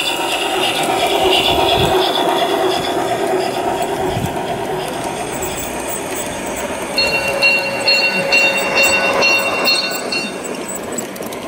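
G-scale model steam locomotive hauling a freight train past on garden-railway track, its running gear and wheels rattling over the rails with a steady hum. From about seven seconds in, a regular high ticking comes in at about three a second for some three seconds.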